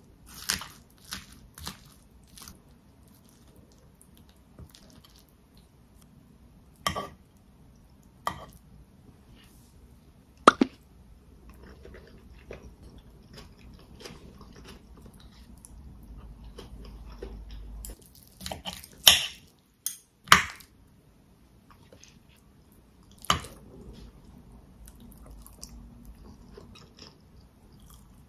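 Eating sounds: a knife and fork clinking on a plate as a rice burger is cut, then scattered single sharp clicks and crunching bites with chewing, quiet in between.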